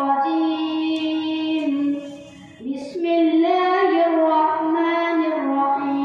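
A boy reciting the Quran in melodic qiraat style, holding long drawn-out notes with small ornamental turns in pitch. He pauses for breath about two seconds in, then starts the next phrase on a higher note.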